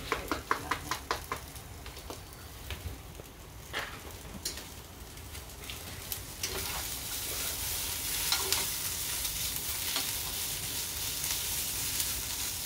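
Food sizzling in a frying pan as it is stirred. A quick run of utensil clicks against the pan comes in the first second or so, and the sizzle grows louder and steadier from about six seconds in.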